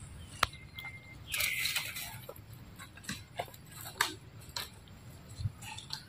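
A brief raspy animal call about a second and a half in, just after a short high chirp, with scattered sharp clicks and ticks.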